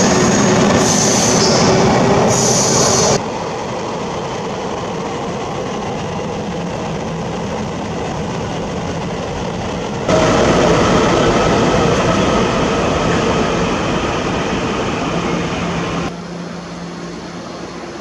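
Passenger trains running past station platforms, wheels rolling and clattering over the rails, in abruptly cut segments. About ten seconds in, a Puyuma tilting express (TEMU2000) passes. Near the end there is a quieter steady hum with the Puyuma at the platform.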